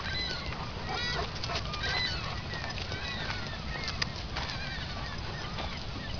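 A flock of birds calling, many short overlapping calls throughout, over a steady low background noise.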